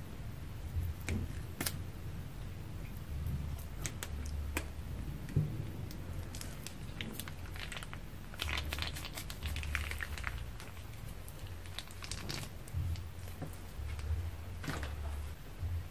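Plastic piping bag crinkling as it is squeezed, with glossy slime crackling in bursts as it pushes out of the cut tip and piles into the bowl. A few sharp clicks near the start, one of them the scissor snip at the tip, over a low steady hum.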